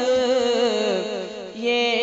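A man singing an Urdu marsiya (elegy), drawing out the end of a line in a long wavering note that fades about a second and a half in, with the next phrase starting just before the end.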